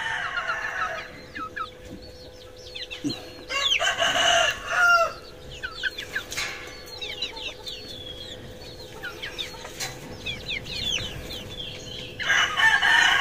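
Young hens clucking and chirping with many short, falling calls. There are two louder, drawn-out outbursts of calling, about four seconds in and near the end.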